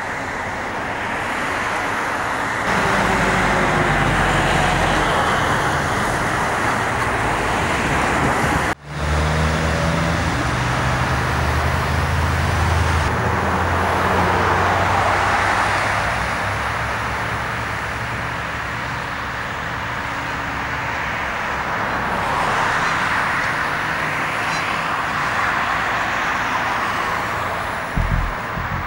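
Steady road traffic noise, vehicles running past with a low engine drone underneath. It drops out for an instant about nine seconds in, and two short low thumps come near the end.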